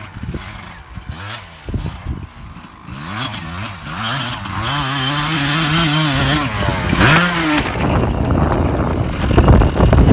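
Dirt bike engine revving up and down as the bike comes down a rocky slope toward the listener, faint at first and growing louder from about four seconds in.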